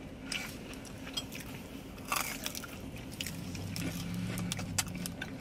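Close-up eating sounds: chewing and biting into food, with scattered small crunches and a louder crunch about two seconds in.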